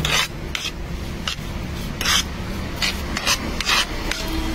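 Spoon scraping and stirring a sticky paan filling with syrups on a plate, in repeated short strokes about every half second, over a low steady hum.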